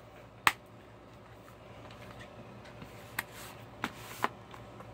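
Handling of a plastic Blu-ray case and its cardboard slipcover: a sharp plastic click about half a second in, then, near the end, a short rustling scrape and three lighter clicks.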